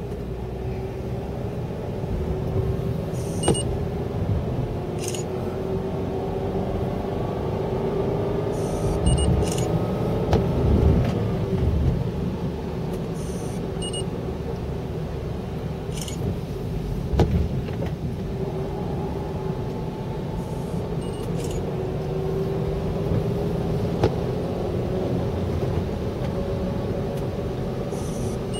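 Car driving on a wet road, heard from inside the cabin: a steady rumble of engine and tyres, the engine's pitch drifting slightly up and down, with a few bumps and scattered short clicks.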